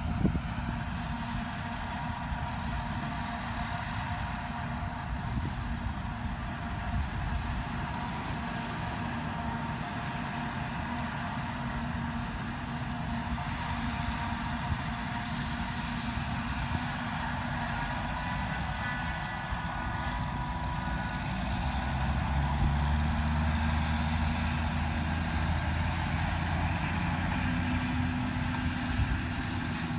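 Forage harvester chopping corn silage, a steady machine drone with a higher whine. About two-thirds of the way through, a loaded silage truck's engine comes in louder and lower as it drives nearer.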